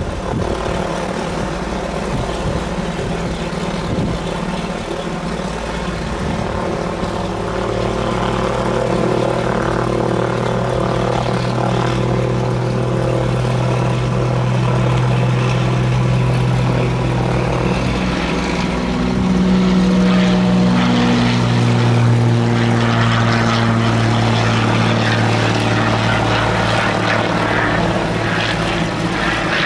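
Cessna 182T single-engine propeller plane at full takeoff power: its six-cylinder Lycoming engine and propeller give a steady drone that grows louder about a quarter of the way in as the plane rolls closer. The pitch shifts as it goes by, about two-thirds through, and it carries on into the climb-out.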